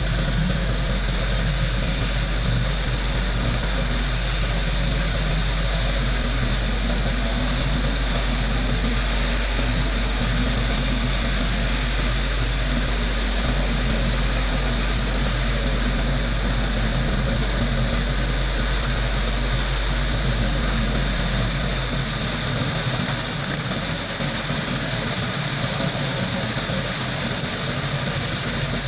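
Compressed-air sandblaster running steadily: a hard hiss of air and abrasive blasting against metal parts, over a low machine hum that weakens near the end.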